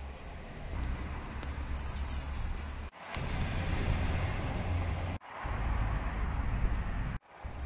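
Ambient outdoor sound: small birds chirping, a quick run of high chirps about two seconds in and then a few single chirps, over a steady low rumble. The sound drops out briefly three times.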